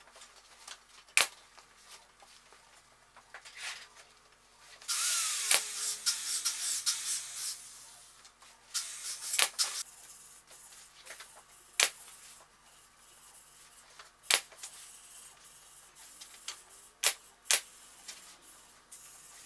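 A pneumatic upholstery stapler firing single sharp shots, about six of them a few seconds apart with two in quick succession near the end, fastening headliner fabric to a wooden carriage-top bow. Between shots there is a stretch of fabric rustling and hiss a few seconds in.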